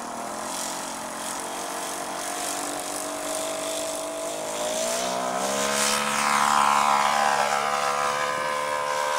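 Engine and propeller of a radio-controlled scale model airplane making a low pass: a steady engine tone whose pitch climbs about halfway through, loudest soon after as the plane passes close.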